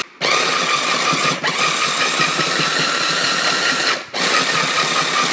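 Hand blender motor driving its mini-chopper attachment in short pulses, chopping butter into flour for shortcrust pastry. There is a steady whine as it runs: one long pulse of almost four seconds, a brief stop, then a shorter pulse near the end.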